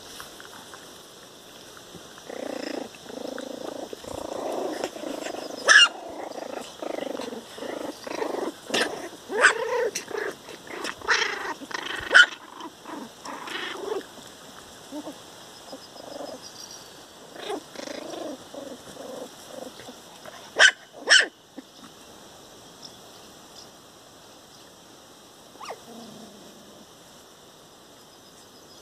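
Young puppies play-growling and yipping as they wrestle, with scattered short high yelps through the first half. Two sharp puppy yaps come close together about two-thirds of the way through.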